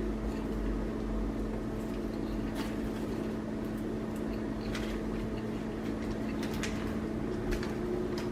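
Whirlpool microwave oven running with a steady hum, while popcorn kernels inside pop only now and then, a handful of scattered pops: the popping is near its end.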